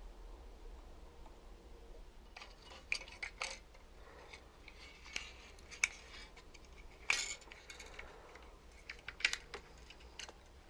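Scattered small clicks and taps starting about two seconds in, the loudest about seven seconds in, as a circuit board and its wires are handled and pressed into a small RC tank body.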